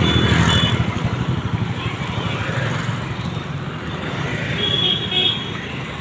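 Busy road traffic with motorcycles running past, and short high-pitched horn toots just after the start and again about five seconds in.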